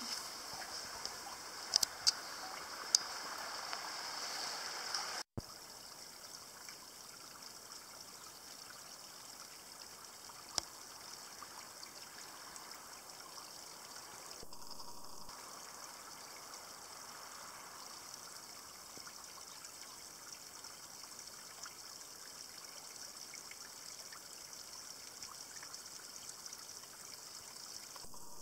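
Faint, steady trickle of spring water seeping over rocks and mine spoil, with a few sharp clicks in the first few seconds.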